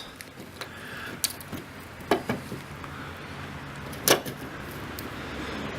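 A few light clicks and knocks as the loosened fresh-water tank valve is handled, the sharpest about two seconds in and about four seconds in.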